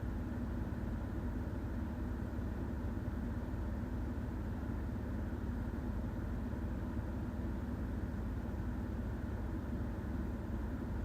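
Steady low hum with an even noisy hiss above it, unchanging in level, with no rise and fall of breathing or snoring.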